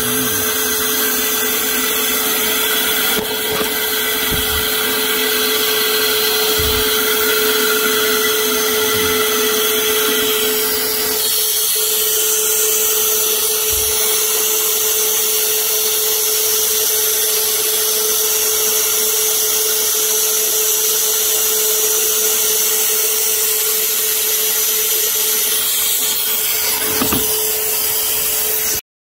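A small electric motor running with a steady whine, with a few soft knocks; it cuts off suddenly near the end.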